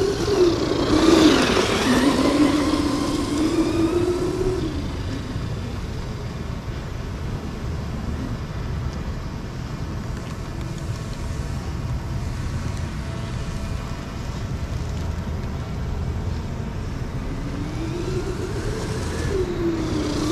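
Arrma Granite 3S RC monster truck's brushless motor whining as it runs on hard sand. The pitch rises and falls with the throttle for the first few seconds, and again near the end. In between comes a quieter stretch with a steady low rumble.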